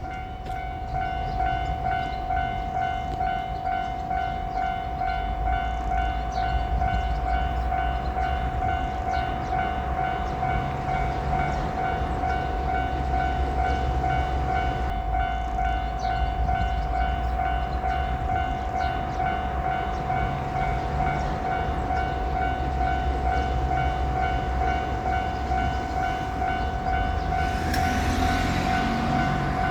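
Japanese railway level-crossing alarm ringing: a repeating electronic two-tone ding over a low rumble. Near the end a rushing noise builds as a train comes through the crossing.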